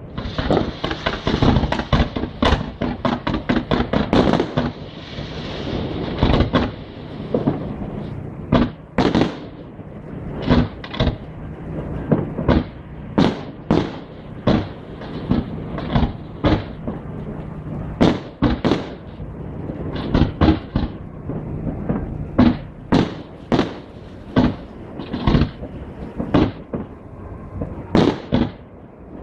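Fireworks display: aerial shells bursting in rapid succession with a hissing crackle for the first several seconds, then separate bangs about a second apart.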